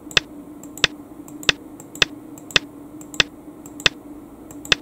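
A series of sharp clicks, about eight of them at a steady pace of roughly one every 0.6 seconds, as the moves of a Go game record are stepped through one by one on a computer board. A steady low hum runs underneath.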